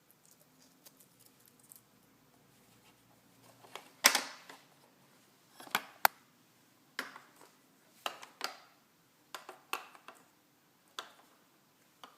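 A series of about ten sharp clicks and short scrapes, starting about four seconds in, the first the loudest: small parts being handled and worked on close to the microphone.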